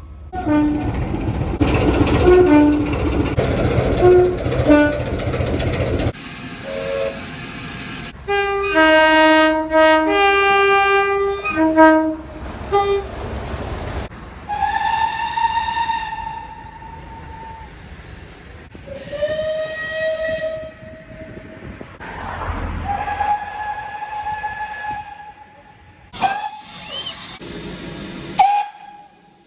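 Train horns and whistles, one clip after another. First comes a horn over a train's running noise, then a multi-note chime horn in several short blasts. Four long whistle blasts follow, of the kind a steam locomotive gives.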